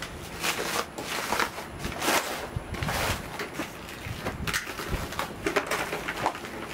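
Packing material being stripped off rack bars: cardboard, tape and plastic wrap crinkling, rustling and tearing in irregular bursts.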